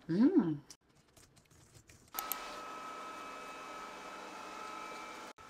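A short hummed voice sound, its pitch rising and falling, then a few faint clicks. From about two seconds in, a steady machine-like hum with a faint high whine runs until it cuts off suddenly near the end.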